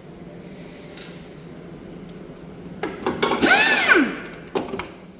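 Hand-held power tool run briefly about three seconds in, its pitch rising as it spins up and falling as it spins down, over a low steady workshop hum.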